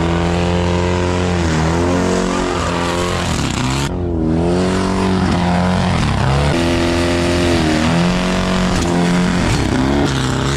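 Sand rail dune buggy's engine at hard throttle, its pitch climbing and dropping several times as the driver works the throttle across the sand.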